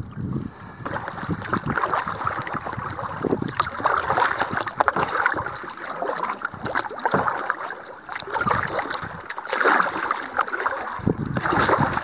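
Paddling an Old Town Discovery 119 canoe through rippled water: irregular splashing and lapping of water at the paddle and hull, with some wind on the microphone.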